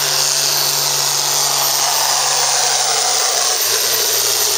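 Hot farm class pulling tractor's diesel engine running flat out under load down the track, a loud, steady, hissy engine noise with no let-up.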